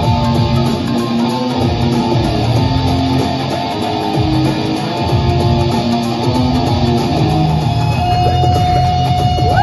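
Guitar improvising a lead line over a trap phonk backing track with heavy bass. Near the end the guitar holds a long note, then bends it upward.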